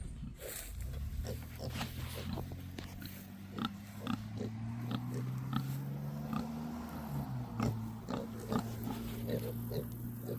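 Kunekune pigs grunting in short, repeated bursts, over a low steady hum.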